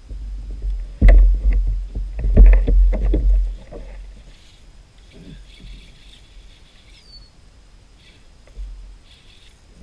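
Knocks and thumps on a Hobie Outback plastic kayak hull, with deep handling rumble, as the angler shifts in the seat and casts a rod. They come in a cluster starting about a second in and lasting about two and a half seconds, then give way to a few faint clicks.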